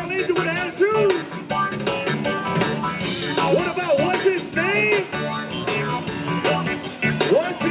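Zydeco band playing live through a stage sound system: electric guitars and drums over a steady beat, with a voice singing along.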